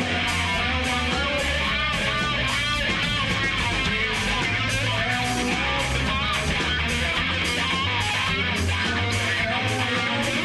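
A rock band playing live: electric guitar over bass, with a steady beat.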